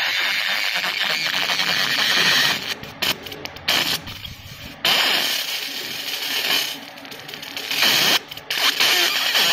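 Raycus fiber laser marking machine engraving black into aluminum: a steady crackling hiss with gliding whines that sweep up and down as the beam traces the design, breaking off briefly a few times.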